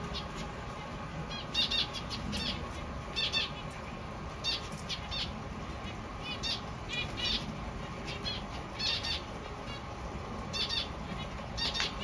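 A flock of zebra finches calling: short, nasal, stacked calls, often in twos and threes, repeated every half second to a second from several birds, with wings fluttering as birds fly between perches.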